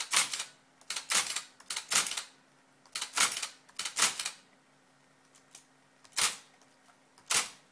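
Mechanical typewriter, its keys worked by an Arduino under computer control, striking single keys: sharp key strikes about once a second, then a pause and two more.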